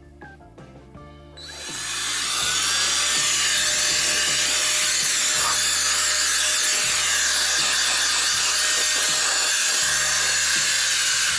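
ICANZUO TAD06 cordless electric air duster switching on about a second and a half in and then blowing steadily with a brush nozzle fitted: a loud, high rush of air over a faint motor whine.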